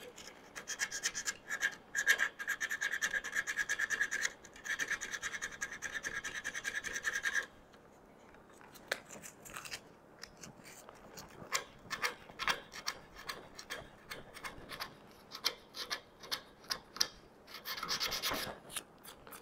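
220-grit sandpaper rubbed by hand back and forth against wood, easing an edge in a tight curve: quick, even rasping strokes for about seven seconds, then after a brief pause slower, scattered strokes.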